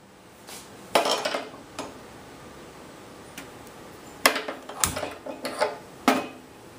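Sharp metallic clicks and clanks with a short ring, in two clusters of three or four, as a hand-held gas lighter is worked against a steel gas stove's burner under a steel pot; one knock about five seconds in has a dull thump under it.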